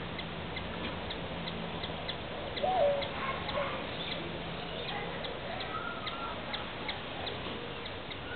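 A hummingbird chipping: sharp high ticks, roughly one or two a second, as it scolds a cat near its nest. About three seconds in, a single short, low hooting bird call rises and falls; it is the loudest sound.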